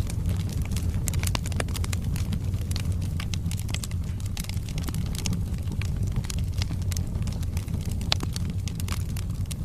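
Wood fire burning in a fireplace: a steady low rumble of flame under frequent sharp crackles and pops from the burning logs, with one louder pop near the end.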